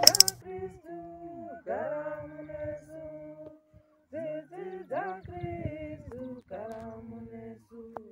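Unaccompanied singing: held notes that slide between pitches, with no beat.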